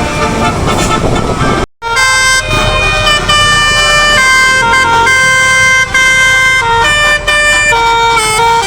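Bus telolet horn, a multi-tone air horn, playing a tune of held notes that jump in pitch every half second or so; it starts after a sudden cut about two seconds in. Before the cut there is a noisy mix with some held tones.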